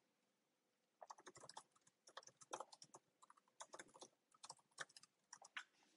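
Typing on a computer keyboard: a quick, irregular run of soft key clicks that starts about a second in and stops near the end.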